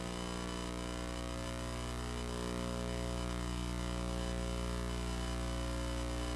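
Steady electrical mains hum with many overtones, unchanging throughout.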